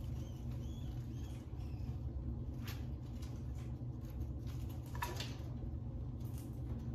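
Pet rats shuffling in wood-shaving bedding, with faint rustling and two brief sharp noises, about three seconds in and again at five seconds, over a steady low hum.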